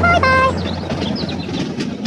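A short horn toot stepping down in pitch in the first half second, then a steady rumbling vehicle noise with high chirps over it.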